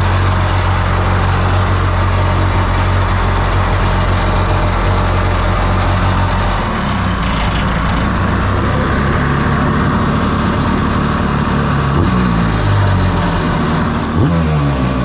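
A 700 cc two-stroke jet boat engine running: steady at first, then from about seven seconds in its speed wavers, and it is blipped up and down a few times near the end.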